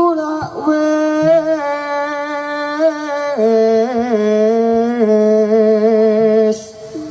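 A singer holding long, ornamented notes with vibrato in a Javanese langgam song, without clear words. The voice steps down to a lower note about halfway through and fades out near the end.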